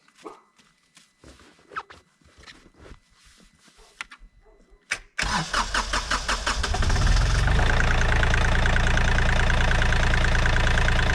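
Kioti CK3510 tractor's diesel engine cranking over about five seconds in, catching within a couple of seconds and settling into a steady idle, after water was drained from its fuel-water separator and the fuel system primed. A few faint clicks and knocks come before it.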